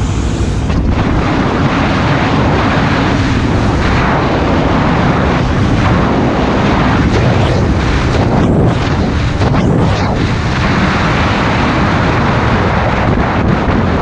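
Motorcycle riding at speed: a steady engine drone under a heavy roar of wind on the rider's microphone.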